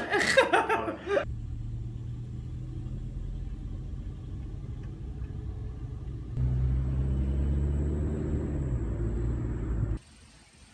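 Steady low rumble of a car driving. It gets abruptly louder about six seconds in, with the engine note easing down a little, then cuts off shortly before the end.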